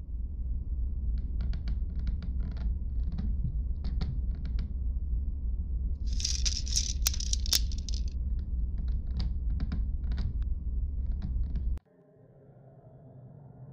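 A steady low rumble with scattered light clicks and taps over it, and about two seconds of dense scraping and rattling with a few sharp clicks about six seconds in. The rumble cuts off suddenly near the end, leaving only a faint hiss.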